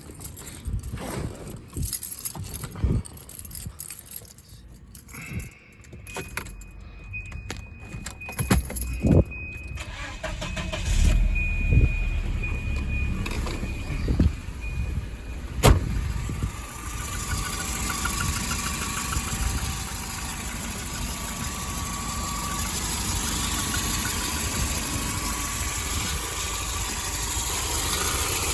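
Keys jangling, then a Volvo 940's engine started about ten seconds in and settling into a steady idle, with a steady high warning tone sounding for several seconds around the start.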